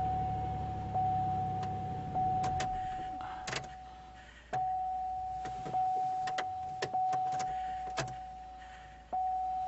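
Dashboard warning chime of a 2003 Chevrolet Impala, a single-pitched tone struck about once every 1.2 seconds, each strike fading away, with scattered sharp clicks. A low hum under it stops about two and a half seconds in.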